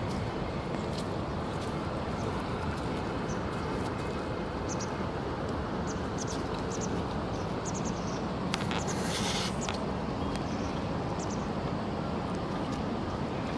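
Steady outdoor background noise with short, high bird chirps scattered through it, and a brief hiss about nine seconds in.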